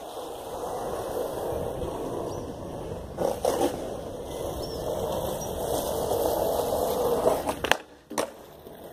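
Skateboard wheels rolling steadily over rough concrete, with a few knocks a little past three seconds. Near the end the board pops with a sharp crack, goes briefly quiet while airborne, and lands with a clack on the metal rail.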